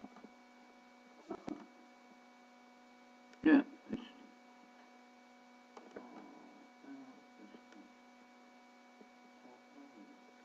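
Steady electrical hum on the microphone line, several even tones held throughout, with a few short bursts breaking in, the loudest about three and a half seconds in.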